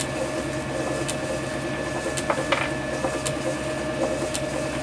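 Metal lathe running steadily while a parting tool cuts off a brass bar in the chuck, a faint tick repeating about once a second over the motor hum.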